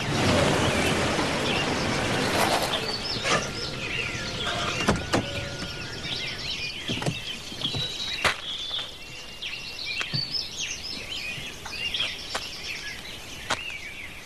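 A car drives up on a dirt drive and comes to a stop, its tyre and engine noise fading after about two seconds. Birds then chirp and twitter throughout, with a few sharp clicks as the car door is opened.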